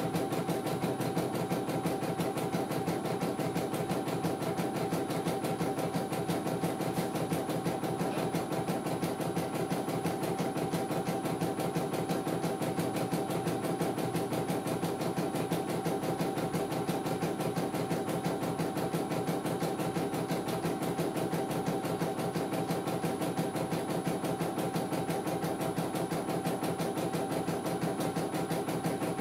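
CNY E900 computerized embroidery machine stitching a design: steady, rapid needle strokes over a motor hum as the hoop carriage moves the fabric. This is a test stitch-out, with the machine running smoothly.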